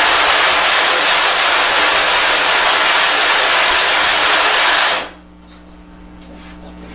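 Sharpening stone being lapped flat on plate glass with loose silicon carbide grit: a steady, loud gritty grinding as it is rubbed round in semicircles, stopping suddenly about five seconds in.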